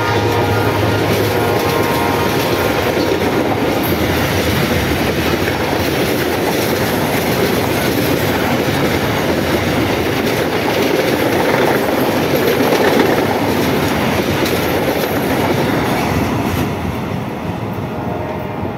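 Long freight train of open hopper wagons passing close by at speed: a steady, loud rumble and clatter of steel wheels over the rails. The last note of the locomotive's horn fades in the first second or so, and the noise drops off near the end as the last wagons go by.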